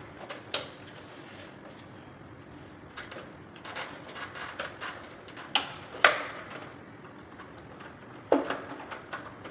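Handling clicks and knocks from the plastic casing and parts of a Carrier split-type air conditioner's indoor unit being worked on by hand. Scattered light clicks, with a few sharper knocks in the second half, the loudest about six seconds in.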